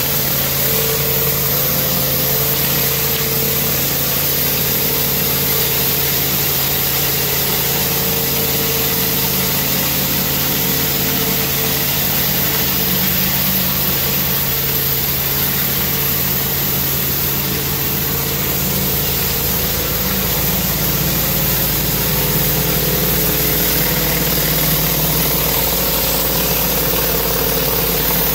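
Pressure washer engine running steadily while a rotary surface cleaner's spinning water jets hiss against wet concrete. The deep rumble shifts a little about two-thirds of the way through.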